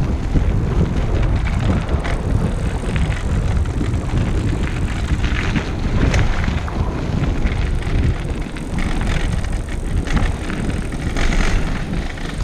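Recumbent trike rolling over a dirt trail, its tyres and frame rumbling and rattling, with wind buffeting the camera microphone. There are brief louder bursts about halfway through and near the end.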